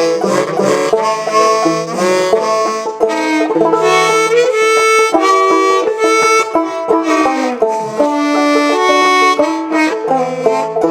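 Instrumental break of an old-time mountain song: a held free-reed melody in the harmonica or accordion range over quick plucked string accompaniment.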